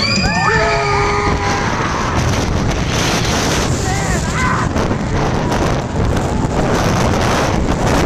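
Roller coaster train rushing along its steel track, with heavy wind buffeting the microphone and the rumble of the wheels. Riders scream in the first second or so and again briefly about four seconds in.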